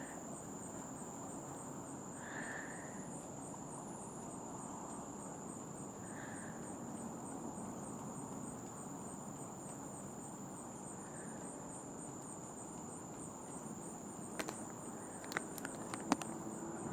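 Insects trilling steadily in a high, fast, even pulse, with a few faint short chirps. A few sharp clicks come near the end.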